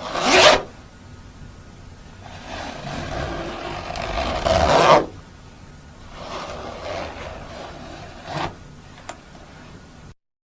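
Jacket zipper being run along its teeth in several separate pulls, a rasping zip each time. There is a quick sharp zip at the start, then a slower one that builds over a couple of seconds to a loud finish, a softer one, and a brief short one near the end.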